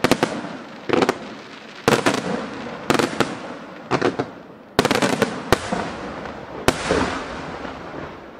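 Aerial firework shells bursting in the sky, a sharp bang roughly once a second, each followed by a fading noisy tail. The last bang comes about seven seconds in, then the sound dies away.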